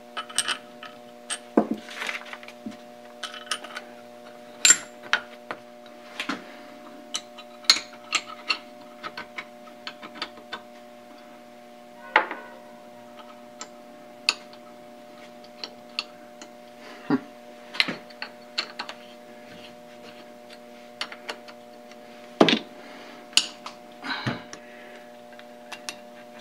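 Steel parts of a dividing-head tailstock being handled and fitted together: irregular metallic clicks, clinks and light knocks, some louder than others. A steady low hum runs underneath.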